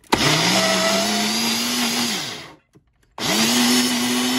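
Ninja personal blender puréeing drained canned beets. The motor spins up, runs about two and a half seconds and winds down, then starts again after a half-second pause.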